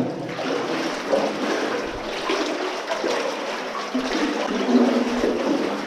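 Feet wading through water that floods a mine tunnel floor: steady sloshing and splashing.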